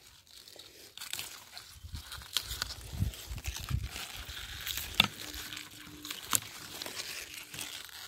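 Rustling and crinkling of green onion leaves and stalks being handled and picked by a gloved hand, with a few sharp clicks, the loudest about five seconds in.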